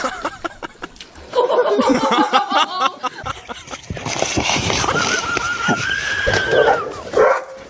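People laughing and talking, with a dog whining in one long high note in the second half.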